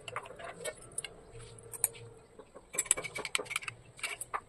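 Scattered light clicks and taps of small glass tumblers being handled and set down on a stainless steel plate, a cluster of them about three seconds in.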